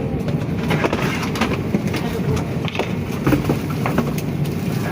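Airliner cabin during boarding: a steady low hum with scattered knocks and clicks and faint passenger voices.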